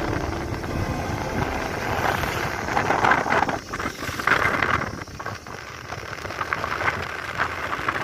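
Road and wind noise from a moving vehicle, swelling louder twice around the middle.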